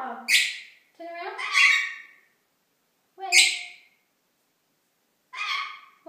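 Rainbow lorikeet squawking: four short, harsh calls, the second one longer, with silent gaps between them.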